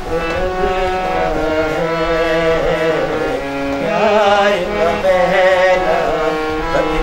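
A harmonium playing sustained reed chords that change note by note, with a man singing over it in a wavering Indian classical-style melody.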